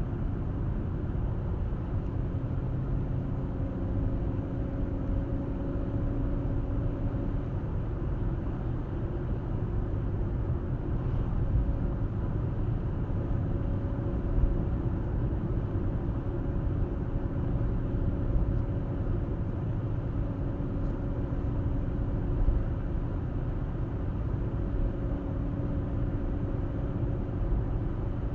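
A car driving along steadily: continuous low tyre and engine rumble with a faint steady hum.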